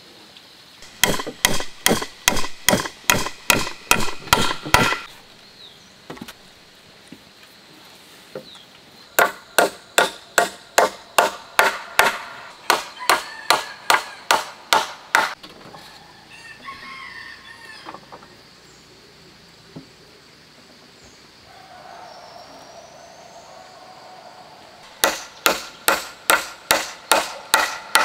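Claw hammer driving nails into a wooden board on a post: three runs of sharp, evenly spaced blows, about three a second, with pauses between runs.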